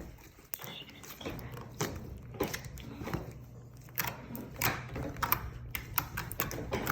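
Slime being squished and worked by hand, giving a string of irregular small pops and clicks.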